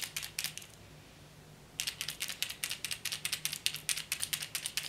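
6th Sense Thud 70 lipless crankbait shaken by hand, its single internal knocker clacking in quick, sharp knocks. The knocks come in two runs, stopping about half a second in and starting again near two seconds. It is a heavier knocking than a BB rattle.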